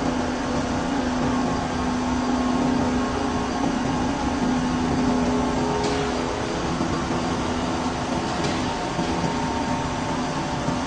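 CNC metal-cutting machine running: steady mechanical noise with a constant low hum that fades out about seven seconds in.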